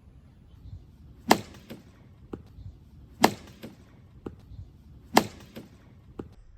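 A bat hitting a ball off a batting tee three times, about two seconds apart, each sharp crack followed by a fainter knock.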